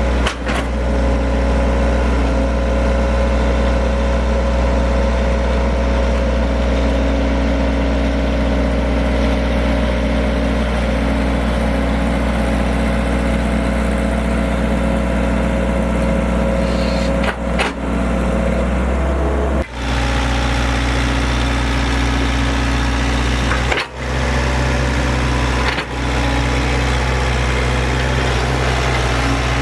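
Heavy machinery diesel engine, an excavator's, running steadily at a low idle-like speed, with a few brief drops in level.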